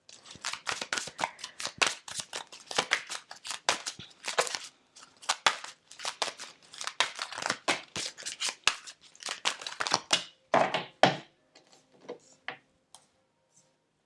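Tarot cards being shuffled and handled: a quick, irregular run of crisp flicks and snaps that thins out about two seconds before the end.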